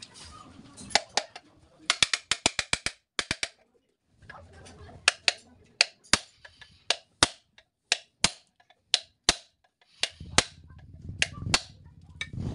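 Hammer blows on a rivet set, peening the rivets that fasten new brake lining to a truck brake shoe held over a home-made rivet anvil. A quick run of about eight sharp strikes comes around two seconds in, then single sharp blows about once a second.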